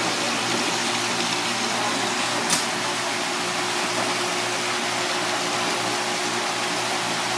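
Steady rush of water running into a live-fish tank from a hose, with a faint hum underneath and one sharp click about two and a half seconds in.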